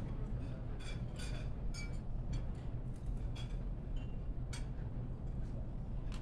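Steady low hum of a large hall, with several scattered light clinks of china cups and glassware.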